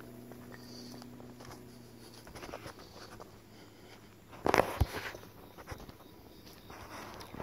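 Footsteps on a dirt and leaf-litter woodland trail: irregular soft crunches and rustles, with one louder crunch a little past halfway. A faint low hum fades out in the first two seconds.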